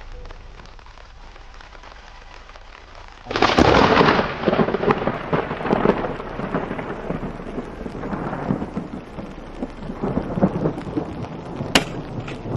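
A thunderclap breaking about three seconds in and rolling on as a long, echoing rumble over a steady hiss of rain, with a sharp crack near the end.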